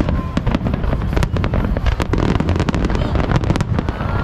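Fireworks display: many sharp cracks and bangs in quick succession over a continuous low rumble.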